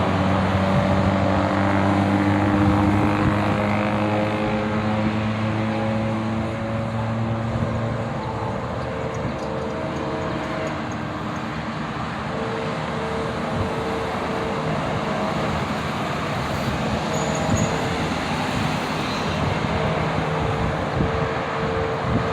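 Diesel commuter-train locomotive running with a low engine drone that fades about eight seconds in, over steady traffic noise; a short tone repeats over and over through the second half.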